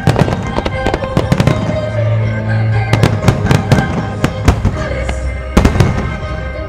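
Aerial firework shells bursting in a rapid, irregular series of sharp bangs and crackles, over loud soundtrack music.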